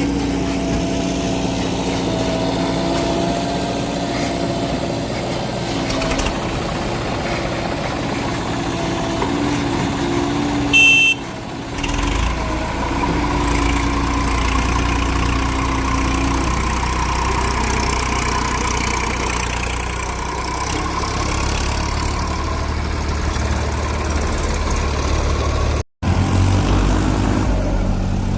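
Heavy diesel machinery engine running steadily, its tone shifting after a brief, loud, high-pitched sound about eleven seconds in. The sound breaks off for an instant near the end, then the engine runs on.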